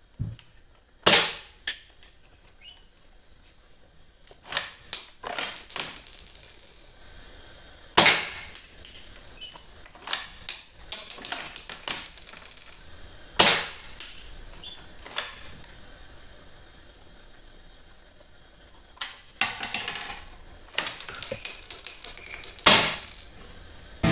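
Small hard toy parts handled on a wooden tabletop: a scattered string of sharp clicks, taps and small clattering impacts, with a thin high ringing twice.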